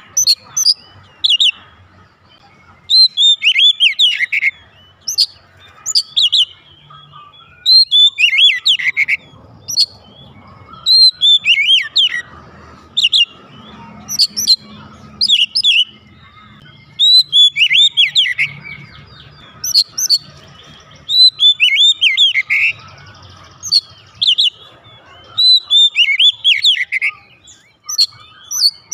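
Oriental magpie-robin singing loudly in full song, phrase after phrase every couple of seconds, each made of falling whistles and sharp chipping notes.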